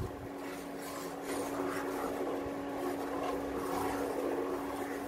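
Stainless steel ladle stirring hot milk and semolina in a steel pot, in irregular strokes, over a steady low hum.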